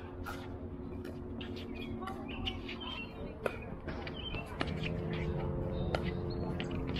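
Pickleball paddles popping against a plastic ball in a quick doubles rally, sharp hits about once a second, with birds chirping in the background over a faint steady hum.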